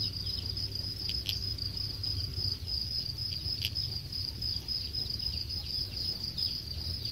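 Chorus of many farmed house crickets chirping in an unbroken high trill, with a low rumble underneath and a few faint clicks.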